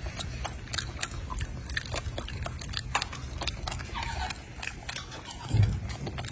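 A golden monkey chewing and biting crunchy food, with many short crackling bites. There is one louder low thump about five and a half seconds in.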